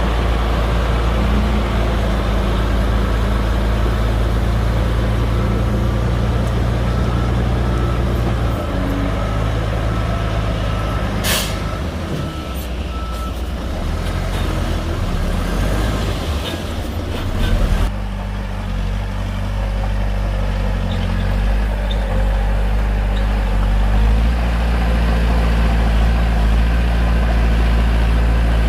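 Bulldozer's diesel engine running as it works, its note dropping and rising again several times as the load changes, with one short sharp noise about eleven seconds in.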